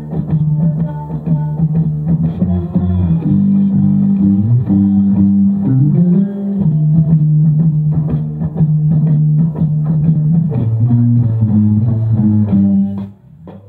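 Electric bass guitar playing a rock bass line, long low notes broken by quick runs, with a short break near the end.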